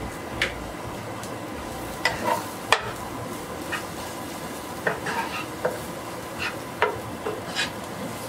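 Shallots and garlic sizzling in a nonstick frying pan while a utensil stirs them, its edge knocking and scraping against the pan about a dozen times at an irregular pace.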